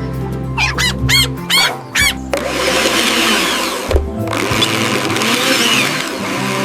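Blender running, whirring steadily as it mixes a banana and milk smoothie, with a short break about four seconds in. Before it starts there is a quick run of short chirps, and music plays underneath throughout.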